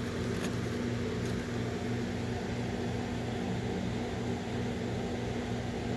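Steady low mechanical hum with a slow, even pulse about three times a second, and a couple of faint ticks near the start.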